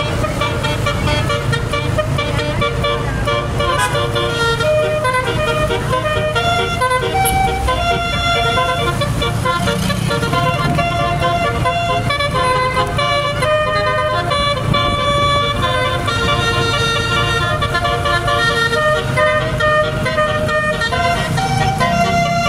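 Multi-note 'telolet' horn on a tour bus playing a tune of quickly changing notes, over the steady low rumble of the bus's engine.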